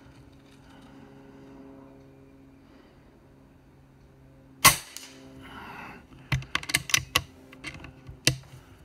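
A Rapid Air Weapons .25-calibre PCP air rifle fires one shot, a sharp crack a little past halfway through. A quick run of clicks and knocks follows, with one more click near the end.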